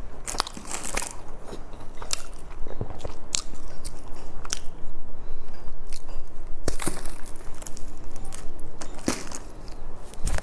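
Close-miked eating sounds: irregular sharp crunches and crackles of crisp snack food being chewed, while a round flaky pastry is broken apart by hand.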